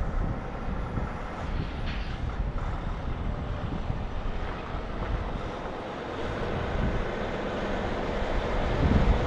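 Diesel Kenworth semi-truck pulling a trailer, its engine and tyres running as it turns and comes closer, growing louder over the last couple of seconds.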